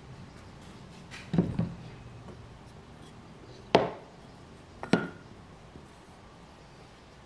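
A metal pocket-hole jig and a pine workpiece set down and fitted together on a wooden board: three hard knocks spread over a few seconds, the last one doubled.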